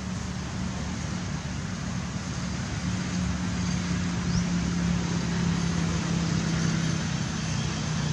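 A steady engine hum over a wash of road-like background noise, growing a little louder about three seconds in.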